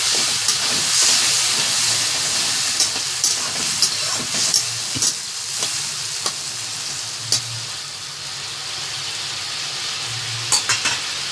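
Chopped tomatoes with spices sizzling in hot oil and a little water in a pan, steady and hissing, while a spoon stirs them and clicks against the pan a dozen or so times.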